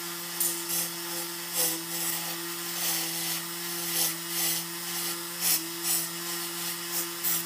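Mantis MKII spindle on a small CNC PCB router running with a steady whine, its spinning bit cutting into a hand-held block of pink foam: short bursts of cutting noise, about one or two a second at irregular spacing.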